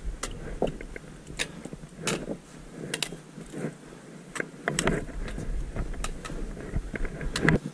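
Trekking pole tip and boots knocking and scraping on loose rock while walking over a boulder field: irregular taps and knocks, roughly one or two a second, over a faint low rumble, with a louder knock near the end.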